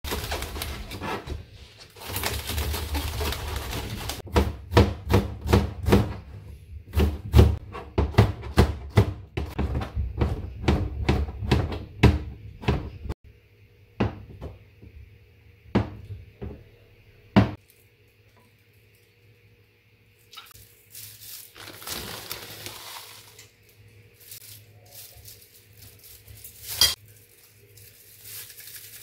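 Kitchen knife chopping vegetables on a plastic cutting board: a fast run of knocks, about three to four a second, for the first dozen seconds. A few single knife strikes through a block of tofu follow, then quieter handling and rustling of a plastic bag and containers, with one sharp click near the end.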